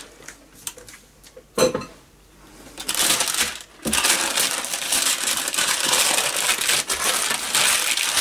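Baking paper crinkling and rustling as gloved hands press and shape a mound of minced beef on it, starting about four seconds in. A single sharp knock about one and a half seconds in.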